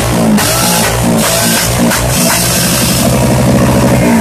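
Background music with a steady beat, mixed over a motorcycle engine running at raised revs. The motorcycle is the Royal Enfield Himalayan's single-cylinder engine with a loud modified exhaust.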